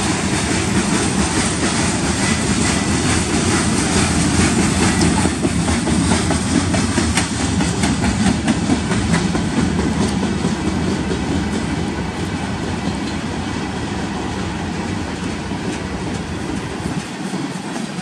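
Freight cars of a manifest train rolling past close by: steady noise of steel wheels on the rails with a clickety-clack of wheels over rail joints, easing a little in the second half as empty bulkhead flatcars go by.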